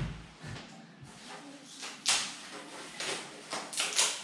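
A heavy telescope tube settles onto a cardboard box with a dull thump, then there are handling noises and the crackling rustle of protective plastic film being peeled off the tube. The rustling is loudest about two seconds in and again near the end.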